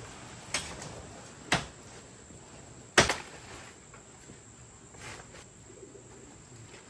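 Three sharp knocks, the third, about three seconds in, the loudest.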